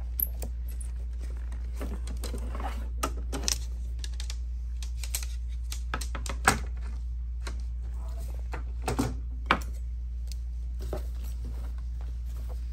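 Handling noise: scattered clicks, taps and rustles as embroidered cotton fabric and its stabilizer are moved and smoothed flat by hand, over a steady low hum. Two sharper clicks stand out, about six and a half and nine and a half seconds in.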